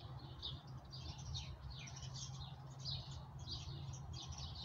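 Songbirds singing: a busy run of short, high chirps, many of them falling in pitch, several a second.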